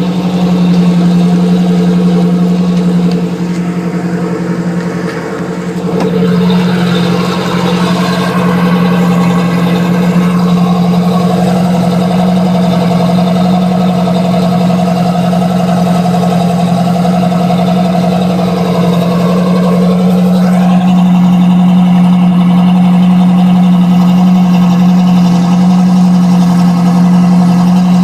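Boat engine running in reverse under a little throttle, a loud steady drone whose note shifts slightly about six seconds in and again around twenty seconds in.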